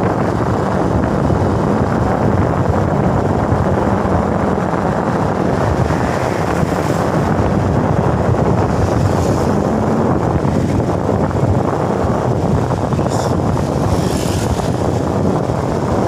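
Steady wind rush buffeting the microphone on a moving motorcycle, with the bike's engine running underneath as it rides along a road.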